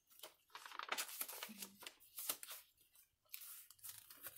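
Faint rustling and crinkling of paper as pages of a handmade junk journal, dyed paper pages among them, are turned and handled by hand, in two spells.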